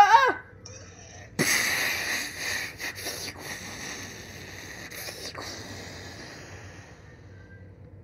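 A long breathy hiss made with the mouth as a sound effect. It sets in suddenly about a second and a half in and fades away over about five seconds, with a few faint clicks.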